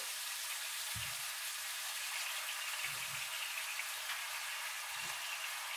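Pieces of beef steak sizzling steadily in a hot pan as they are flash-seared, with a few faint low bumps.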